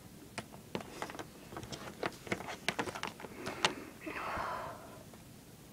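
Quick, irregular clicks and taps of small plastic Littlest Pet Shop figurines being handled and set down on a table, then a short breathy rush about four seconds in.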